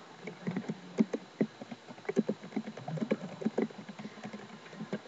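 Typing on a computer keyboard: an irregular run of keystroke clicks, several a second.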